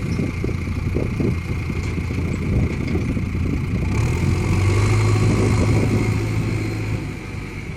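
JCB 3DX backhoe loader's diesel engine running, its steady low hum growing stronger from about four seconds in and easing off near the end, with a steady high whine alongside.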